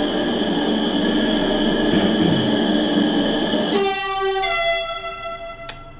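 Namo Bharat rapid-rail train arriving, its horn sounding a long steady call over the train's running rumble. About four seconds in the horn drops lower in pitch and then fades out.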